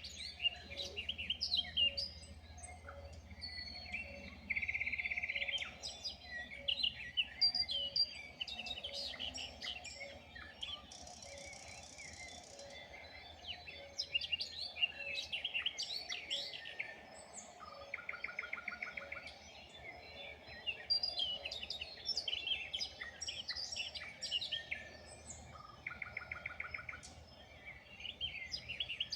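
Several wild songbirds singing together in a dawn chorus, with many short overlapping chirps and whistles. A few dry, rapid trills come in now and then, one of them higher and buzzier.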